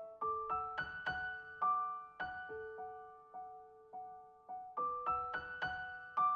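Background music: a gentle piano melody of single struck notes, each fading away, about two or three notes a second.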